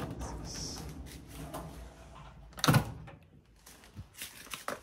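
Front-loading laundry machine door pulled open: one loud clunk of the latch letting go a little over halfway through, followed by a few small clicks.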